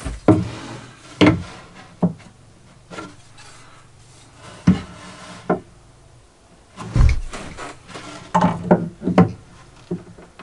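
Irregular wooden knocks and rubbing from parts being handled inside and against a plywood saw cabinet, with a heavier, deeper thump about seven seconds in and a quick cluster of knocks near the end.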